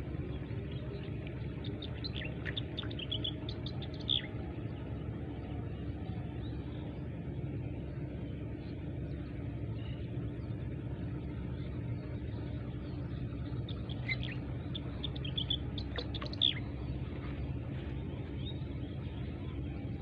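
A motor running steadily with an even low hum, and birds chirping in two short runs, about two to four seconds in and again around fourteen to sixteen seconds in.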